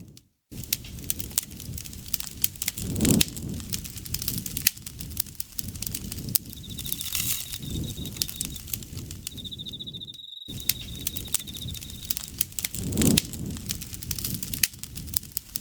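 Campfire crackling, with frequent sharp pops over a low rumble of the flames. An insect trills at a steady high pitch from about six seconds in until about twelve seconds, with a short break in the middle. The sound cuts out for a moment at the start and again about ten seconds in.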